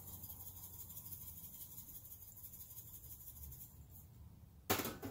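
Black pepper being shaken from a metal shaker over a steel bowl of beef, a faint rapid scratchy patter, then one sharp knock near the end.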